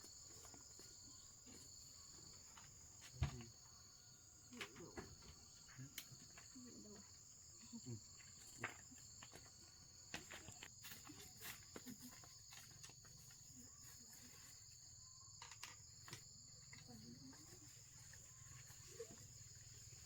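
Faint steady chorus of insects holding two high pitches, with scattered light clicks and rustles. There is one sharper knock about three seconds in.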